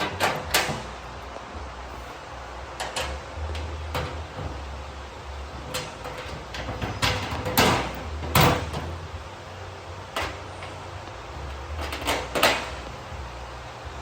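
Scattered metal clicks and knocks as bolts are clipped into the slots on a drum mower's shields, with a few louder clanks a little past halfway through and near the end.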